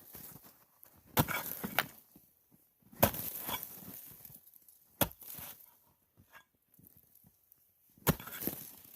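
A Pulaski axe chopping into a pile of frozen, iced-over snow: four sharp strikes, roughly two to three seconds apart, each followed by the brief crunch of ice breaking up.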